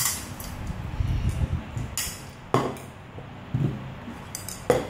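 Chopsticks knocking and scraping against a bowl and plate, with about four sharp clinks as the dishes are handled and moved on the table.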